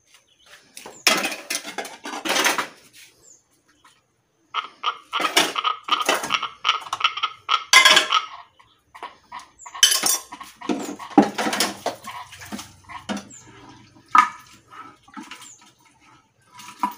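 Metal cooking pots and utensils clattering, scraping and knocking together in irregular bursts, some knocks ringing briefly.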